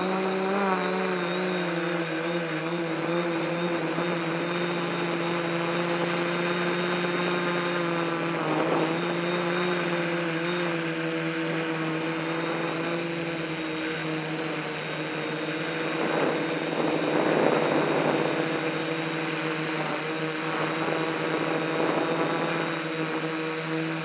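Quadcopter drone's electric motors and propellers whining steadily, heard close up from the drone's own camera, the pitch drifting a little as it manoeuvres. Partway through, a rushing noise swells over the whine for a couple of seconds.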